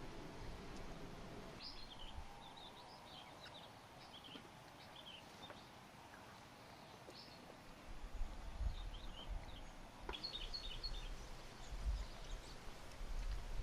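Small birds chirping in quick short calls, in two spells, over a faint outdoor background. A low rumble comes in about two-thirds of the way through.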